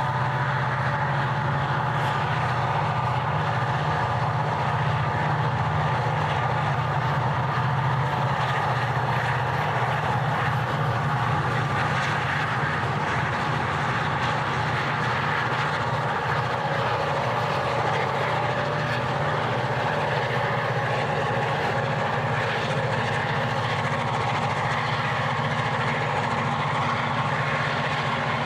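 EMD diesel-electric locomotives of the GM and ALF classes working under load, hauling a loaded grain train. The engines make a steady, heavy drone with a pulsing low note and a steady whine above it.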